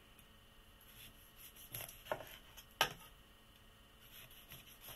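Chef's knife slicing a lemon on a wooden cutting board: a few short knocks of the blade through the fruit onto the board, the loudest a little before the middle, and another near the end.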